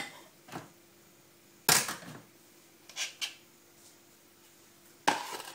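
A few separate clinks and knocks of a spoon and bowls against a glass mixing bowl, with quiet between them; the loudest comes a little under two seconds in, and another starts near the end.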